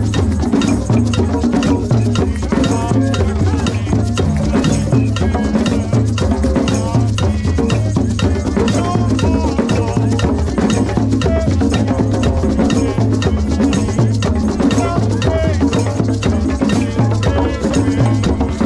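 Drum circle: congas and djembes played by hand together with a drum kit's cymbals and hand shakers, keeping a steady rhythm.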